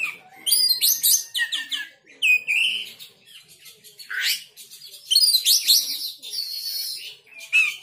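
Oriental magpie-robin singing in a fast run of loud, varied whistled phrases, with a harsh scratchy stretch about six seconds in.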